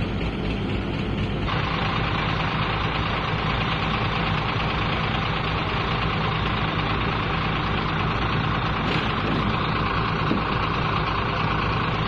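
Diesel engine of an Atlas Weycor AW1110e wheel loader running steadily; about a second and a half in, its sound turns louder and harsher and stays that way.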